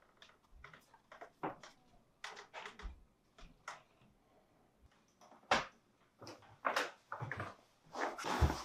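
Scattered small handling noises, knocks and clicks as a paper card is pulled from among books on a shelf and handled, followed by a few steps on a wooden floor. Near the end comes a dull thump as a person sits down on a sofa.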